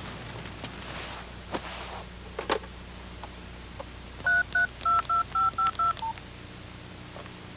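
Telephone keypad dialing: about eight quick two-note touch-tone beeps as a number is keyed in, after a couple of sharp clicks.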